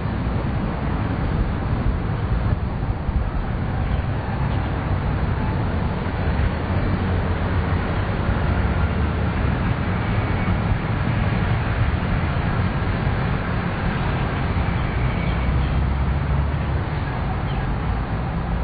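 Steady wind rumble buffeting an outdoor camera microphone, with a continuous rough hiss above it and no distinct events.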